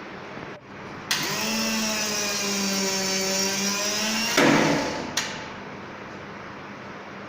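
Spring-charging motor of an 11 kV Siemens circuit breaker mechanism running with a steady whine for about three seconds, rising briefly as it starts, recharging the closing spring after the breaker has closed. It stops with a clunk, followed by a sharp click about a second later.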